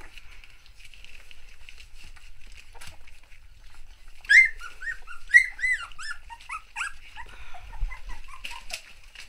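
Young puppies whining and squeaking at a feeding dish: after a few quiet seconds, a quick run of about a dozen short, high cries, each rising and falling in pitch.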